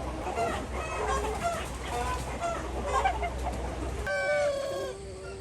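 A flock of chickens clucking, with many short overlapping calls, then one longer, louder call about four seconds in. A low hum underneath stops at the same moment.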